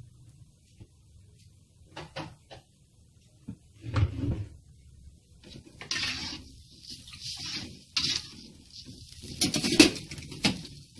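Metal spatula scraping and knocking against an aluminium wok of simmering chilies and tomato, in scattered strokes that are loudest near the end.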